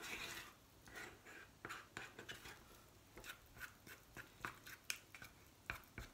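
A small utensil scraping and clicking against a small stainless steel saucepan as a thick solid-shampoo paste is stirred, in faint, irregular strokes about three a second.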